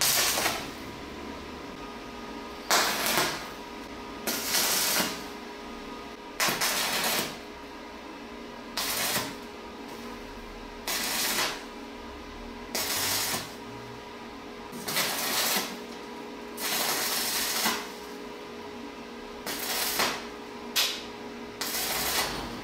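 Stick-welding electrode arcing on the end of a square steel tube in a series of short crackling bursts, about eleven of them, each half a second to a second long and roughly two seconds apart, as the end is welded in short runs. A steady electrical hum runs underneath between the bursts.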